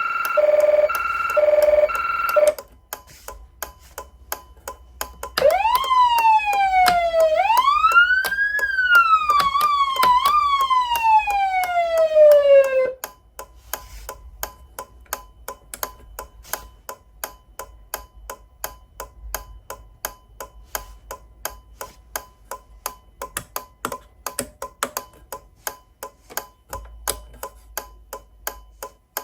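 Federal Signal Unitrol Touchmaster electronic siren amplifier: a pulsing steady-pitch tone stops about two seconds in, then a siren rises and falls in pitch for about seven seconds with two quick blips before cutting off. Through it all the amplifier's indicator-flasher relay ticks steadily, like a turn signal left on, and it is left ticking alone after the siren stops.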